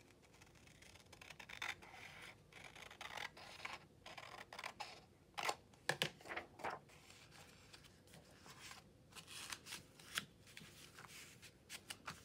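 Quiet snipping of small scissors trimming a sliver off a book page, followed by paper rustling, sliding and crinkling as the page is fitted into an envelope pocket and pressed flat. The sounds come as short scattered rustles and sharp clicks.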